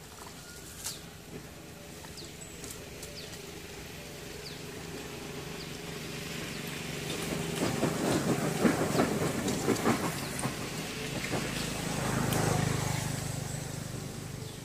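A motor vehicle's engine humming as it passes, growing louder to a peak in the middle and fading toward the end, with a run of clattering knocks over the loudest part.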